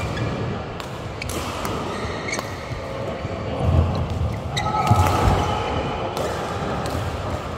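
Badminton rally: several sharp racket-on-shuttlecock hits about a second apart, with short squeaks of court shoes and thudding footsteps on the court, echoing in a large hall.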